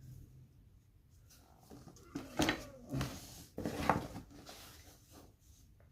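Sharpening stones and their boxes being handled: a short run of knocks, clacks and scraping about two to four seconds in, as stones are picked up and set down on a hard surface.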